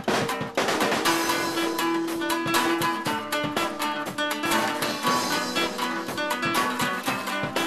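Guitar playing a fast run of picked notes.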